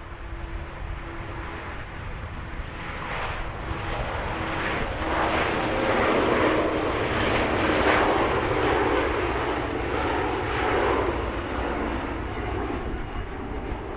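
Airbus A330-800neo's Rolls-Royce Trent 7000 turbofans running as the airliner moves along the runway. The jet noise grows louder from about three seconds in, is loudest a few seconds later, then eases off.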